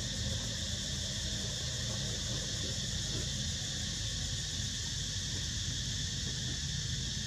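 Steady high-pitched insect chorus, even and unbroken, with a low rumble underneath.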